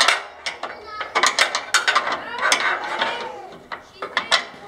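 Small socket ratchet wrench clicking in short runs with brief pauses as it turns a nut on a bolt.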